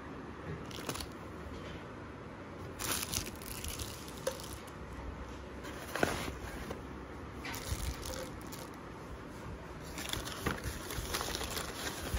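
Paper shopping bag and crinkled kraft wrapping paper rustling and crackling in irregular spells as a hand rummages through them, sharpest about six seconds in.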